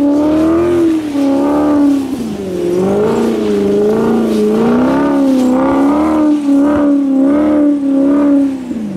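Saloon car's engine held at high revs while its wheels spin on wet grass, the pitch swaying up and down with the throttle. The revs drop away sharply near the end.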